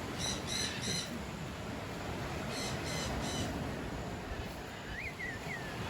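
A bird calling in two runs of three short evenly spaced notes, then a brief wavering chirp near the end, over a steady low rumble.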